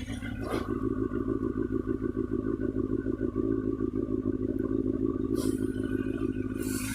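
Kawasaki Balius II's four-cylinder engine idling with a steady, rapid, even pulse, run on oil with an additive added to deal with an abnormal engine noise. A hiss comes in briefly about five and a half seconds in.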